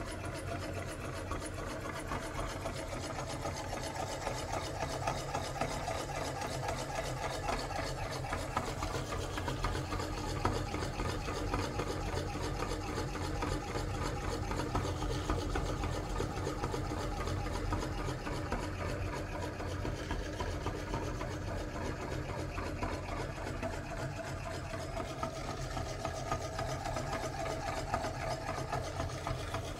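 Motor-driven meat grinder running steadily while crushing Orbeez water beads through its cutting plate.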